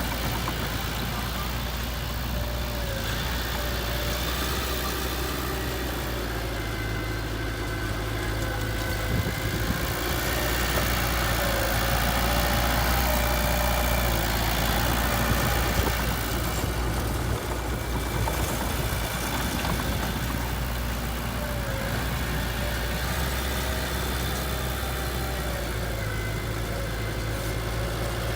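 Heavy-equipment diesel engine running steadily, growing louder for several seconds around the middle before settling back.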